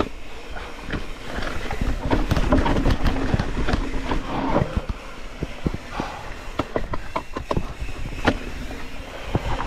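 Mountain bike riding fast down a dirt trail: tyres rolling on packed dirt, with frequent rattles and knocks from the bike over bumps and a low rumble underneath.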